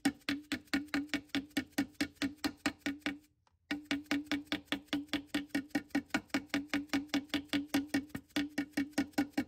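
Dead blow hammer lightly and evenly tapping a new filter seal up into its bore in an automatic transmission case: a steady run of quick taps, about five or six a second, with a short break about three seconds in.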